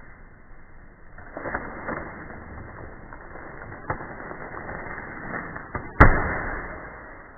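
A sledgehammer strikes a plasma TV once with a loud smash about six seconds in, the sound dying away over a second or so. Before it come scattered small knocks and crackles.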